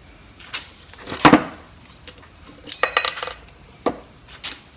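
Steel brake-pad slide clips being pried off a cast-iron brake caliper bracket with a small screwdriver: a sharp metal snap about a second in, then a cluster of light metallic clinks with a brief ring about three seconds in, and a few more clicks near the end.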